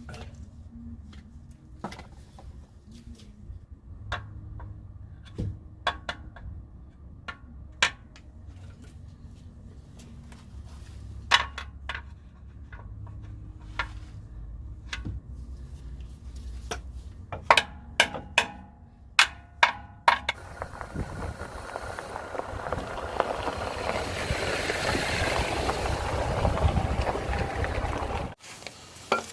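Pry bar working at a Jeep oil pan: scattered sharp metal clinks and clanks as steel taps and levers against the pan and engine block, several in quick succession past the middle. For the last third a steady rushing noise builds up and then cuts off abruptly.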